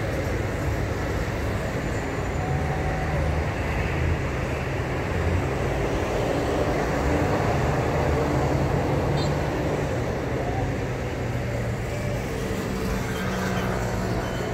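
Street traffic: a steady rumble of vehicle engines with a low hum that shifts slowly, and faint voices in the background.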